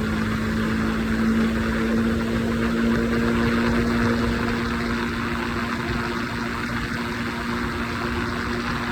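Triumph Scrambler 400X's single-cylinder engine running at a steady highway cruise, its note holding one pitch under a steady hiss of wind and tyre noise.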